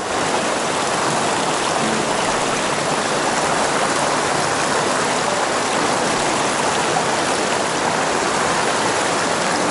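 Mountain stream rushing steadily over boulders through shallow white-water rapids.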